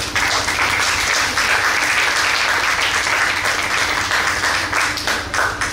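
Audience applauding: many hands clapping in a dense, steady patter that thins to a few scattered claps near the end.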